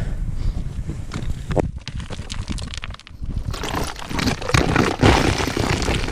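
Footsteps crunching over rough ground and brush, with irregular crackling and scuffing that grows busier and louder from about three seconds in, over a steady low rumble.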